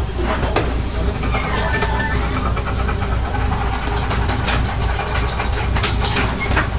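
Fishing boat's engine running with a steady low drone over churning wake water, with a few sharp knocks, mostly in the second half.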